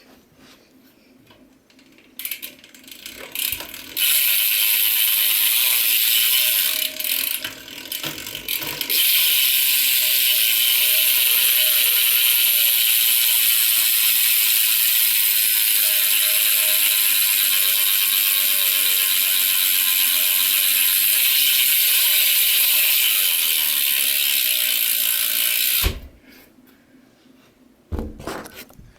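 Rant rear hub of a BMX bike clicking fast as the rear wheel spins freely: a dense, steady ratcheting buzz of pawl clicks. It builds up a couple of seconds in, drops away briefly about seven seconds in, then runs steadily until it cuts off about three seconds before the end.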